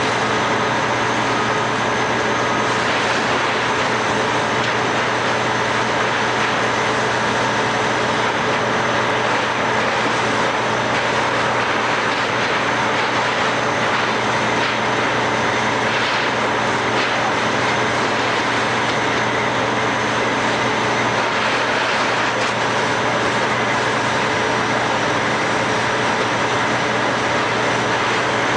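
Steady drone of a heavy engine running at a constant speed, with several steady tones over a continuous hiss.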